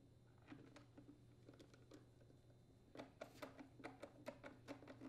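Faint clicking of a hand screwdriver driving a screw into a leaf blower's plastic engine housing: a few scattered clicks, then a quick run of about five clicks a second from about three seconds in.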